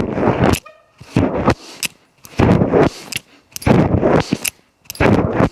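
Person doing pull-ups on a doorway pull-up bar: five loud, noisy bursts about a second and a quarter apart, one with each rep.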